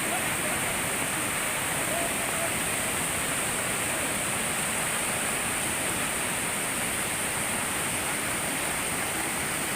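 Steady rushing of floodwater, an even noise that holds at one level throughout.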